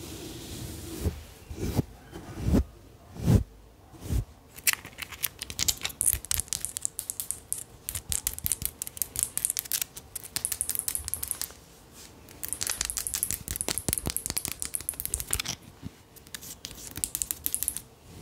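Close-miked ASMR trigger sounds: a few soft low thumps, then long runs of fast, crisp scratching and crinkling, like fingernails or an object worked rapidly against the microphone.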